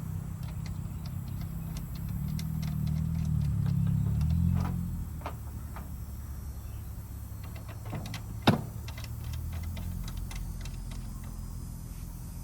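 A steady low machine hum that swells for a few seconds, with scattered light clicks and taps and one sharp knock about eight and a half seconds in.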